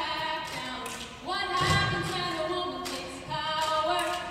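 Children's chorus singing a cappella in many voices, with sustained notes that change every second or so. Two low thumps sound with the singing, at about one and a half seconds and three and a half seconds in.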